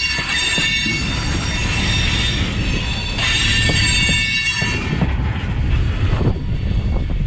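Union Pacific freight train's tank cars rolling past close by: a heavy rumble of steel wheels on rail with sharp clicks at the rail joints. A high wheel squeal rings out at the start and again about three to five seconds in.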